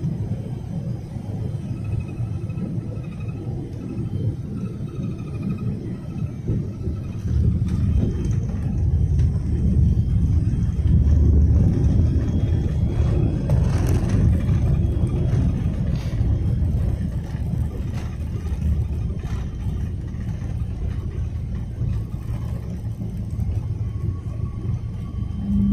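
Airliner cabin noise during the landing roll: a steady low rumble of engines and runway. It swells about seven seconds in as the aircraft decelerates, with a brief sharper rattle near the middle, then eases off again.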